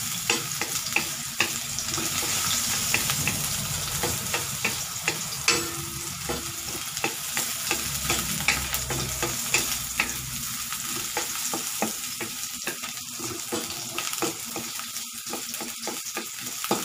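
Sliced ginger sizzling steadily in hot oil in a wok while a wooden spatula stirs it, with frequent short knocks and scrapes of the spatula against the pan. This is the sauté (gisa) stage, the aromatics frying in the oil.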